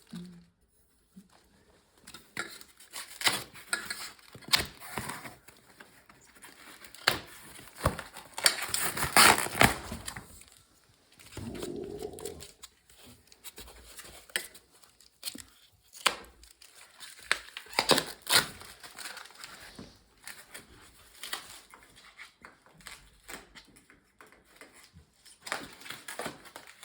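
Packaging material crinkling, rustling and tearing in irregular handfuls, with sharp crackles and clicks as the wrapping is pulled away.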